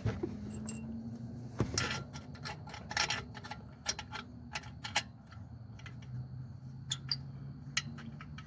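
Irregular light metallic clicks and clinks, about a dozen, as alternator mounting bolts are threaded in by hand, over a low steady hum.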